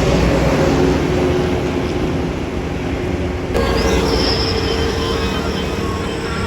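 Heavy buses running and passing at close range, a steady deep engine rumble. A bit past halfway a high, thin squeal rises briefly and then holds, together with a steady mid-pitched tone.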